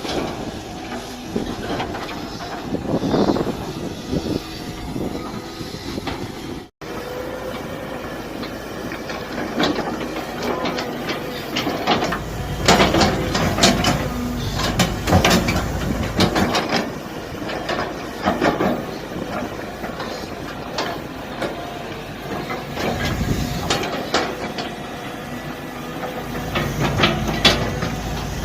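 Mini excavator at work: its engine running, with repeated metal clanks and knocks from the working machine. The sound cuts out for an instant about seven seconds in.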